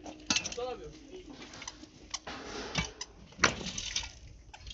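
Hand work on cement: scattered sharp knocks and scrapes of tools, with a brief pitched call about half a second in.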